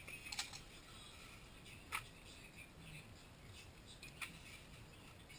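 Three short, sharp clicks over quiet background, about two seconds apart: small handling noises of tools and wire as work is done at the motorcycle.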